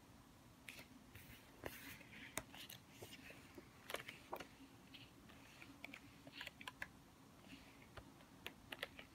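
Pages of a paper workbook being turned and handled: a run of faint paper rustles and crisp little clicks at irregular moments.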